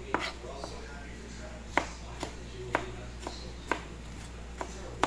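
Chef's knife chopping diced tomatoes on a cutting board: sharp knocks of the blade on the board, unevenly spaced about every half second.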